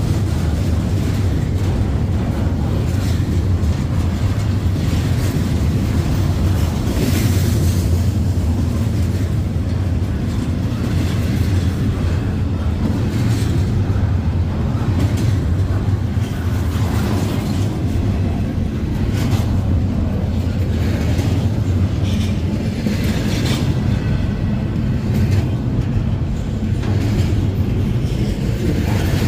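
Double-stack intermodal freight train passing close by: a steady low rumble of steel wheels on rail, with irregular clacks and rattles as the container well cars roll past.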